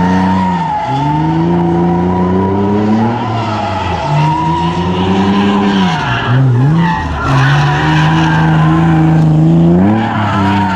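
Drift car's engine held at high revs, dropping briefly and climbing back several times, over a steady high-pitched squeal of tyres sliding sideways.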